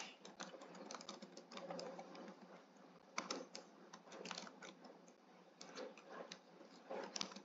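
Faint computer keyboard typing: keystrokes come in short, irregular bursts separated by brief pauses.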